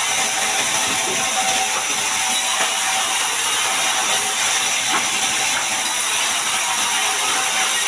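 Band sawmill running steadily, its blade sawing a large mahogany log.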